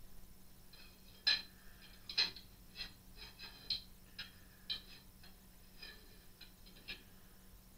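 Light metallic clicks and taps, irregular and a dozen or so, from a hand tool driving M5 machine screws into a small steel bracket on a mill/drill table. The two loudest clicks come between one and two and a half seconds in.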